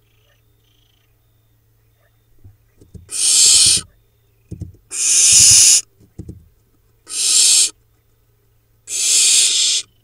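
Barn owl nestlings giving four harsh, hissing begging calls, the food-begging 'snoring' of hungry owlets. Each call lasts just under a second, and they come about two seconds apart. A few soft low bumps sound between the first calls.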